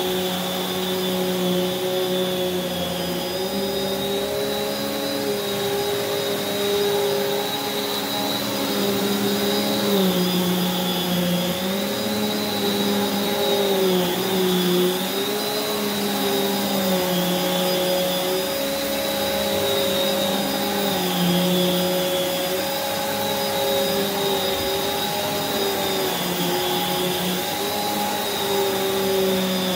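Prolux X8 Elite backpack vacuum running with its EBK360 power nozzle on carpet: a steady motor hum with a high whine. Its pitch dips and rises every couple of seconds as the nozzle is worked back and forth.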